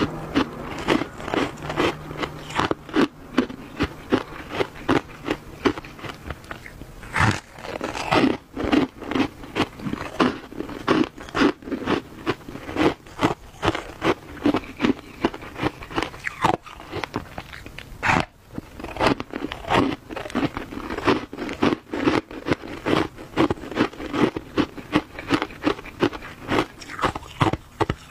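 A block of shaved ice being bitten and chewed close to the microphone: a continuous run of crisp crunches, about two or three a second.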